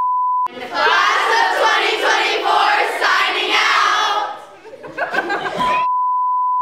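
A steady test-tone beep of the kind played with colour bars cuts off about half a second in. A large group of girls then shouts together for about three and a half seconds, with a shorter burst of voices after a brief dip. The same steady beep comes back near the end.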